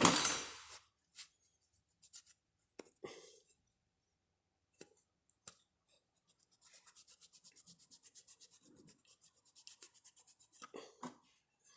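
Brake pad hardware clips being scrubbed clean by hand: a fast, even back-and-forth scratchy rubbing, about nine strokes a second, for several seconds in the second half, after a few light clicks and taps as the parts are handled.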